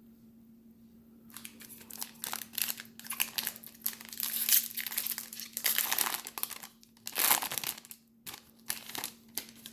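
A foil trading-card pack wrapper being torn open and crinkled by hand, in irregular crackling bursts starting about a second in. A faint steady hum runs underneath.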